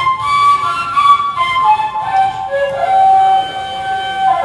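A flute playing a loud melodic phrase of several notes that step downward and settle on one long held note, which cuts off near the end.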